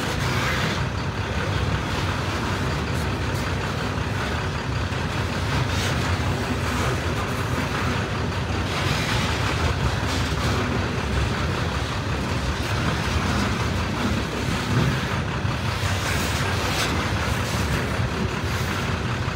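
Steady rumble of a CSX freight train's hopper cars rolling past, steel wheels on the rails, with a few faint sharp clicks now and then.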